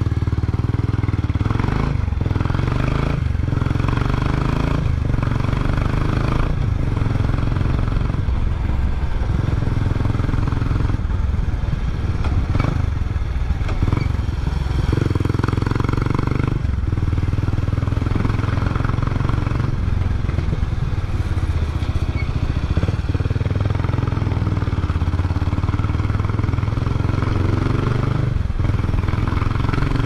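Kawasaki Estrella 250's air-cooled four-stroke single-cylinder engine running under way, its exhaust note steady throughout with several brief dips in the first half.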